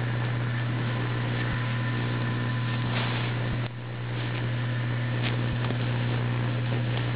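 A steady low hum under a continuous hiss, with a few faint short clicks.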